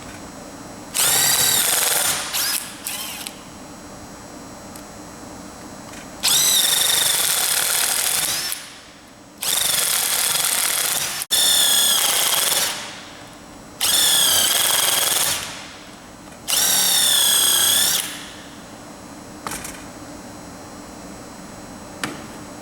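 Impact wrench driving a belt punch bit, run in about six short bursts of one to two seconds each, its pitch climbing as each burst starts: bolt holes being drilled through a rubber conveyor belt for a hinged plate fastener.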